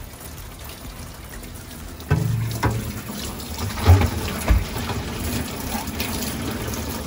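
Fresh artesian well water pouring and splashing, with a few low knocks as it starts about two seconds in, then running steadily.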